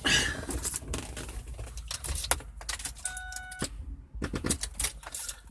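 Car keys jangling and clicking in the ignition of a car that won't start, with a short electronic dashboard chime about three seconds in; the car's owner thinks the battery is dead.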